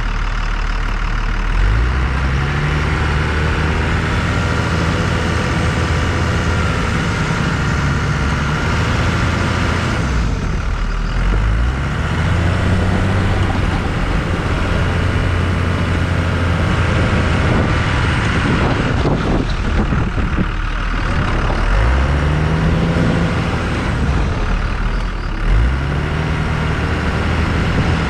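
Ram 2500 pickup's engine running under load while pushing a snow plow through deep snow, revving up and easing off a few times, with a steady rushing noise underneath.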